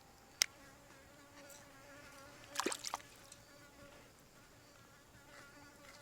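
A fly buzzing steadily close by, with a sharp click about half a second in and a louder cluster of clicks and taps near the middle.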